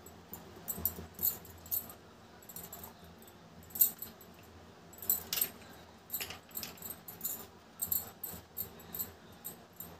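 Light, irregular clicks and taps as appe are set down and shifted around on a stainless steel plate, with fingers touching the metal rim and bowls.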